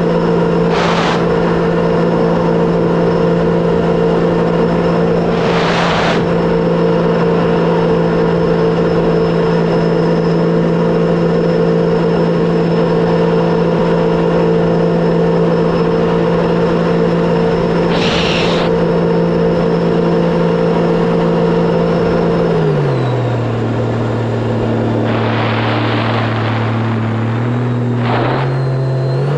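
Sea-Doo RXP-X 300 jet ski's supercharged three-cylinder Rotax engine running at a steady cruising speed, with a few brief rushing sounds. About three-quarters of the way through the pitch drops as the throttle comes off, and the engine settles to a lower, slower speed that picks up a little near the end.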